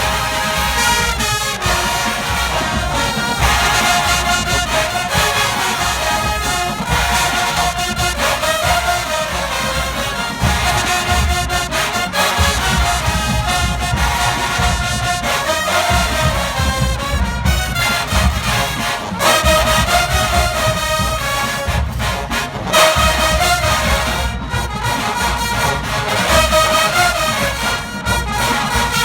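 College marching band playing loudly, with massed brass (trombones and trumpets) over pounding bass drums.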